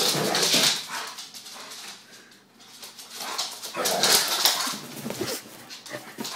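A Labrador and a collie play-fighting, vocalising and scuffling in two loud bursts, one at the start and one about four seconds in, with a short lull between them.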